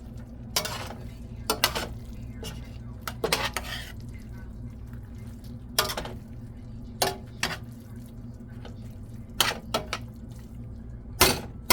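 A utensil clinking and knocking against a cooking pot of vegetables, in irregular sharp clatters about every second or so, over a steady low hum.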